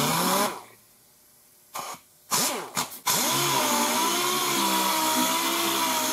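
Air-powered dual-action palm sander sanding the final coat of primer on a car body panel. It runs until about half a second in, cuts out, gives two short bursts, then runs steadily from about three seconds in, a hiss with a slightly wavering whine.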